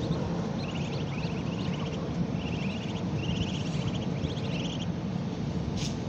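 Muscovy ducklings peeping in about six short clusters of rapid high chirps, over a steady low rumble.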